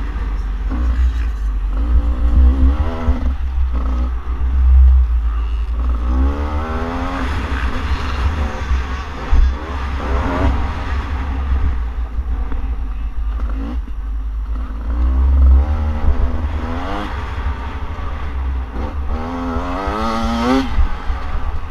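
2017 Beta 300RR two-stroke single-cylinder dirt bike engine being ridden hard, the revs climbing steeply three times and dropping off between, over a heavy low rumble of wind on the microphone.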